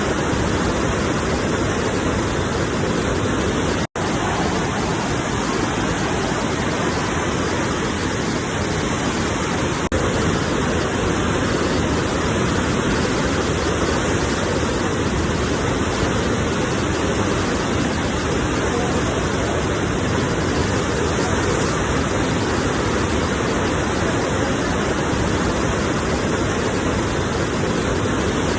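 Sea waves and surf making a steady, even rush of noise with no distinct breaks standing out, cutting out for an instant about four seconds in.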